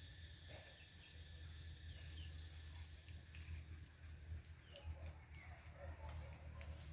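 Quiet outdoor ambience: a steady low rumble with faint high chirping and a thin pulsed trill from small creatures in the trees.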